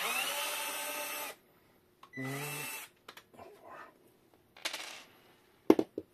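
Cordless electric screwdriver whirring as it backs out the last of four small panel screws: one run of about a second with the pitch rising as the motor spins up, then a second short burst. Light clicks and handling noise follow, and a sharp knock comes near the end.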